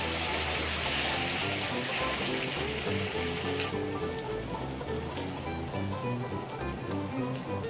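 Stir-fried pork and vegetables sizzling in a wok, loud at first and dying away over the first three or four seconds, with light background music throughout.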